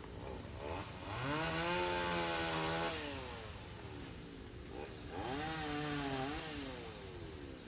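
A small engine revving up twice: each time the pitch climbs, holds steady for a second or two, then falls away.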